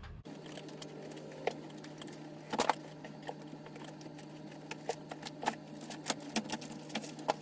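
Irregular clicks of calculator keys being pressed, a few at a time, with a faint steady hum underneath.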